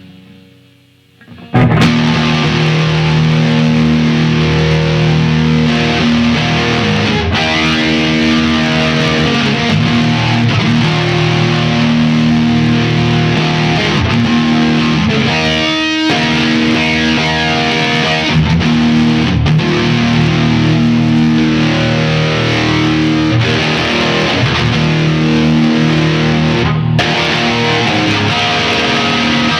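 Electric guitar, a Les Paul copy with its original pickups, played through Line 6 POD Farm amp and effects modelling via a POD GX interface. It comes in loud about a second and a half in, with held distorted notes and chords.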